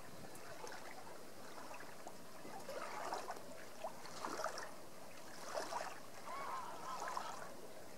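Water gurgling and splashing along the hull of a Hustler 35 sailing yacht under sail, in short irregular splashes over a steady wash.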